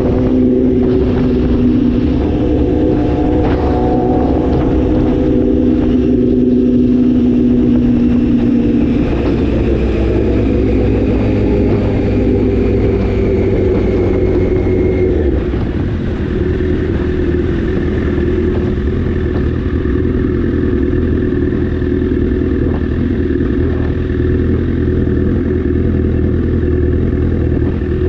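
Sport motorcycle's engine running steadily under the rider, heard from the bike itself over a low rumble of road noise. About halfway through the note drops and settles lower as the bike eases off.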